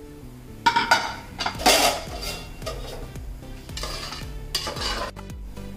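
Metal clanking and scraping as a pressure cooker's whistle weight and lid are taken off. There is a sharp clank under a second in, longer rattling scrapes around two seconds, and again a little before the end.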